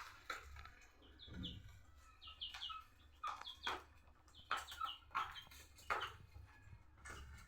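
Chickens calling: short, high chirping peeps in quick runs of two or three, repeated several times, with sharp clicks between them.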